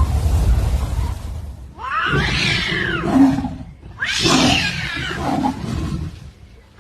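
A low rumbling noise, then a cat yowling twice in two long drawn-out calls that rise and then fall in pitch.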